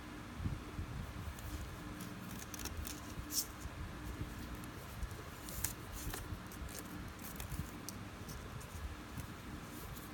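Fishing line and fingers handling and tugging the line while tying a knot: faint rustles and a scattered few small clicks over a steady low hum.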